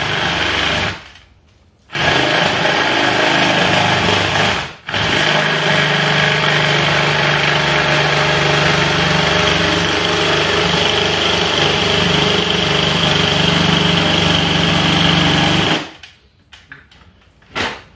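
Cordless drill driving a reciprocating-saw attachment, its blade sawing through plywood. It stops briefly about a second in and again near five seconds, then runs steadily until it stops near the end.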